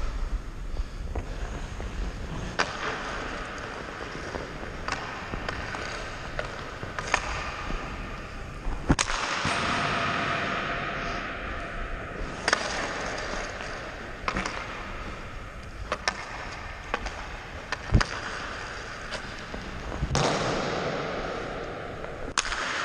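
Hockey skates carving and scraping across the ice in swelling hisses, broken by about ten sharp clacks of a hockey stick and pucks striking, the loudest near the end.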